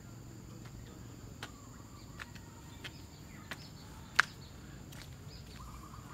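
Outdoor ambience of insects making a steady high drone, with a few faint bird chirps. Footsteps on a paved path give several sharp clicks, the loudest about four seconds in.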